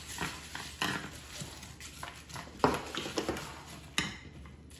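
Large metal spoon stirring roasted pumpkin seeds in a baking dish: irregular scrapes and clinks of the spoon against the dish, with the dry seeds rustling.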